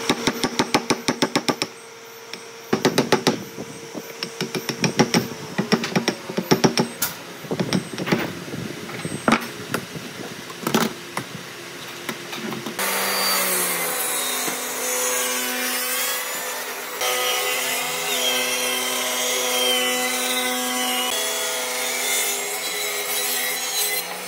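Handsaw cutting into a clamped pine block: rapid, even strokes in bursts with short pauses. About halfway through, a steady running machine noise with a sustained tone takes over.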